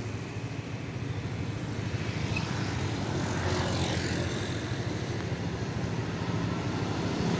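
Street traffic: a motor vehicle engine running steadily with a low hum, getting a little louder toward the end.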